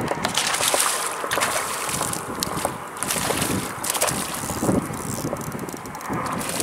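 Wind buffeting the microphone: an uneven rushing noise that swells and eases in gusts.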